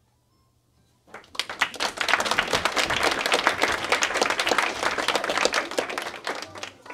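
Audience applauding. Dense clapping starts about a second in and tapers off near the end.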